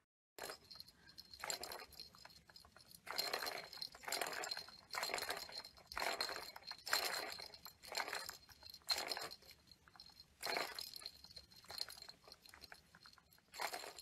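Plastic ball rolling and rattling around a cat's circular track toy, in short bursts about once a second as the cat and a finger push it along the track.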